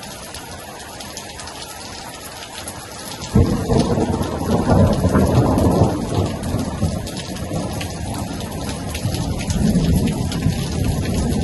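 Steady rain falling, then about three seconds in a thunderclap breaks suddenly and goes on as a loud, low rumble. The rumble eases slightly and swells again near the end.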